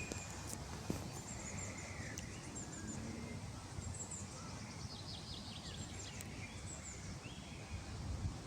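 Small birds chirping outdoors: scattered short high calls and quick runs of notes, over a steady low rumble.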